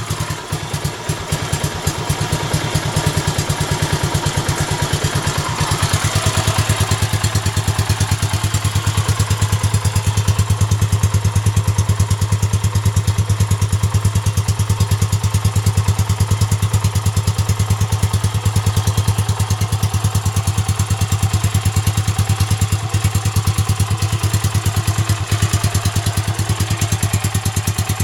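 Yamaha SRX400 single-cylinder four-stroke running steadily at low revs through a Yoshimura Thumper aftermarket exhaust, an even train of exhaust pulses. It is slightly quieter for the first couple of seconds, then holds steady.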